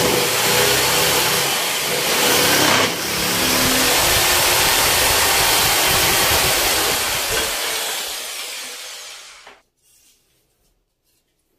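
Bosch GST 700 500 W jigsaw cutting a curve through a wooden board: a loud, steady buzz of the reciprocating blade in the wood. About eight seconds in it is switched off and runs down over a second or so, leaving a few faint clicks.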